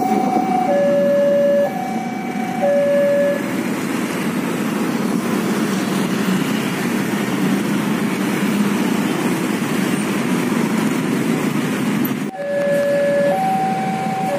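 Railway level-crossing alarm sounding its two alternating tones, high then low, about a second each. It stops after about three seconds, leaving a steady rumble of a passing train and road traffic, and the two-tone alarm starts again near the end.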